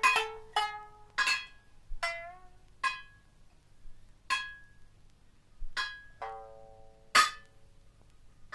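Sparse, separate plucked notes on a sangen (three-stringed lute) and strikes on a small frying pan, each ringing out and fading, roughly one a second with gaps between. One note about two seconds in bends in pitch, and the loudest, sharpest strike comes about seven seconds in.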